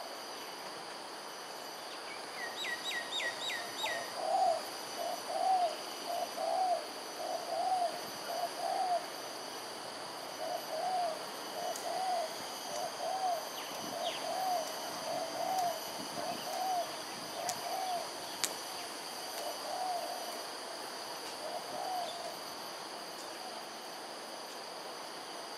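A bird calls in a repeated series of low hoots, short rising-and-falling notes about three every two seconds, with a brief pause partway and stopping a few seconds before the end. Near the start comes a quick run of about five high, falling chirps. A steady chorus of insects runs underneath.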